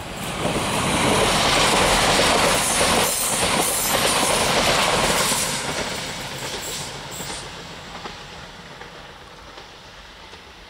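Siemens Desiro electric multiple unit (OSE class 460) passing close. It swells within the first second, stays loud for about five seconds, then fades away as the train pulls off into the distance.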